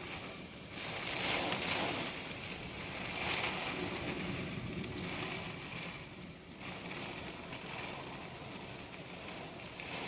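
Strong hurricane wind with driving rain from an outer rainband, a rushing noise that swells in gusts about a second in and again from about three to five seconds, then eases.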